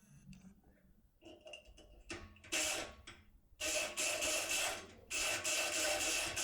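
Multipick Kronos electric pick gun buzzing in three runs of about a second each, starting about two and a half seconds in, as it vibrates the pins of an Apex cylinder lock. A few faint clicks come before the first run.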